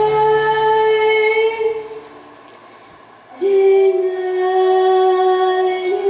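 A girl singing into a microphone: one long held note that fades out about two seconds in, a short pause, then another long held note a little lower that carries on to the end.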